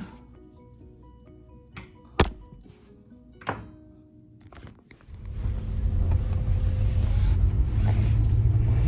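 Soft background music with two sharp knocks, the louder about two seconds in. From about five seconds the low rumble of a car under way swells up and holds.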